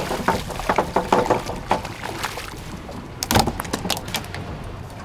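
A fish splashing at the surface beside a boat, with sharp clicks and knocks from the boat and tackle. A louder cluster of knocks comes about three seconds in, over a low steady background.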